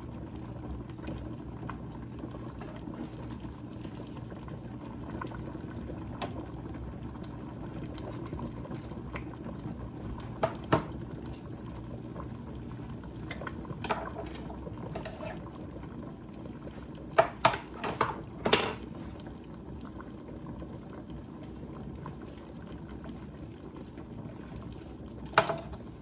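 Sinigang broth with milkfish pieces boiling steadily in a stainless steel stockpot. A few sharp knocks of kitchen utensils cut through it, with a quick cluster about two-thirds of the way in.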